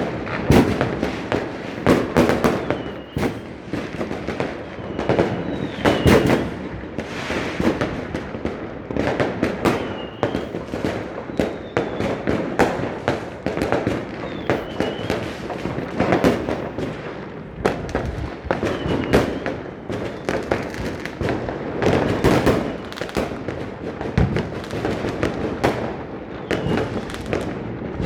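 Fireworks going off without pause: dense, overlapping bangs and crackling, with the loudest bursts about six seconds in and again near twenty-two seconds.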